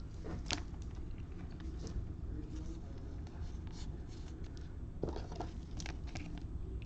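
Faint rustling, sliding and light clicks of trading cards being handled and flipped through, with a small flurry about five seconds in, over a low steady room hum.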